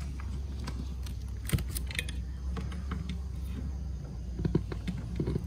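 Speaker woofer clicking as 1.5-volt DC leads are touched onto its terminals: a few scattered clicks, then a quicker run of clicks and crackles near the end. The clicks show the old driver is still alive.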